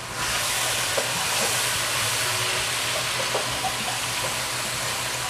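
A thin sauce of soy sauce and vinegar with onions and spring onions sizzling hard in a hot nonstick wok as a spatula stirs it. The hiss swells suddenly at the start and holds steady, with a few faint taps of the spatula.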